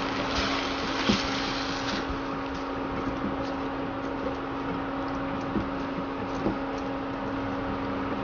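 Prawns in tomato masala sizzling in oil in a pan on an induction cooktop, stirred with a silicone spatula, louder in the first couple of seconds, with a few light knocks against the pan. The cooktop's cooling fan hums steadily underneath.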